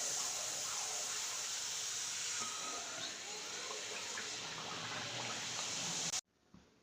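Besan papad frying in hot oil: a steady sizzling hiss with faint crackles, cut off abruptly near the end.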